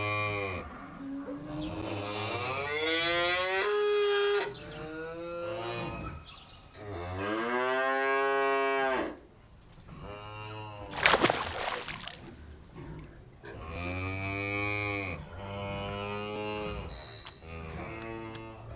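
Cattle mooing: about five long, drawn-out calls with gaps between them. A short burst of rushing noise about eleven seconds in is the loudest sound.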